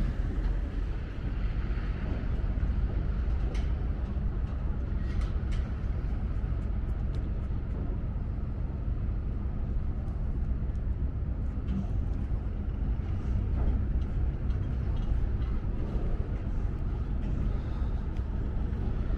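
Harbour ambience: a steady low machinery and traffic rumble with a faint constant hum, and a few light clanks scattered through it.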